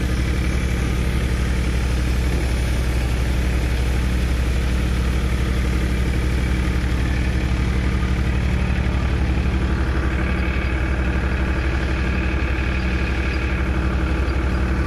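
Powertrac Euro 42 Plus tractor's diesel engine running steadily under load, powering a multicrop thresher. A higher whine joins about ten seconds in.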